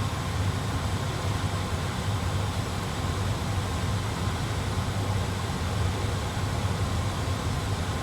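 Steady cockpit background noise in an A320 flight simulator: a low hum with an even hiss above it.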